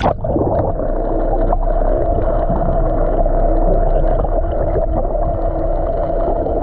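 Boat's outboard motor running steadily with a low hum and a churning water sound. It cuts in suddenly and stops abruptly.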